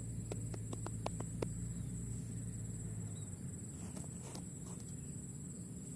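Steady high-pitched insect chorus, like crickets, over a low outdoor rumble. A quick run of small clicks or taps comes about half a second to a second and a half in, with a few more around four seconds.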